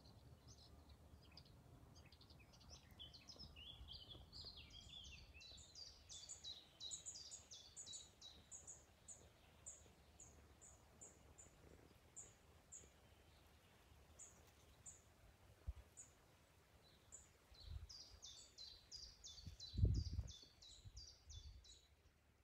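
A small songbird singing faintly: quick runs of short, high chirping notes, a long run over the first eight seconds with a few scattered notes after it, then another run near the end. A single low thump about twenty seconds in is the loudest sound.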